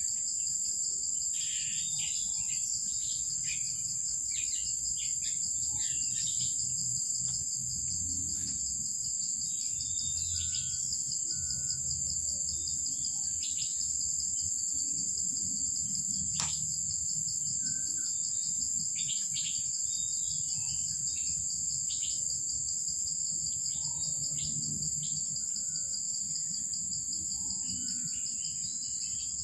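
Insects trilling steadily in two unbroken high-pitched tones, with short faint chirps scattered through.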